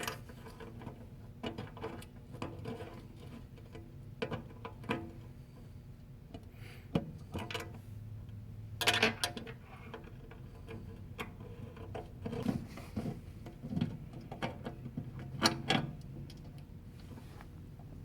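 Irregular clicks and light knocks of display-case hardware being handled and fitted, with a few sharper knocks about halfway through and near the end, over a faint low hum.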